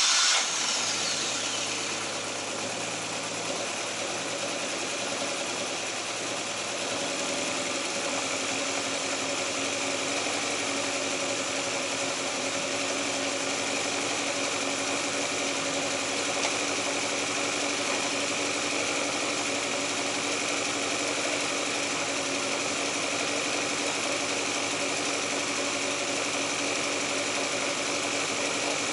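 Toyota 20-valve (5-valve-per-cylinder) 4A-GE four-cylinder engine on a test stand running just after starting: loud at first, dropping within the first second, then idling steadily. The owner judges its drive belt to be short of tension.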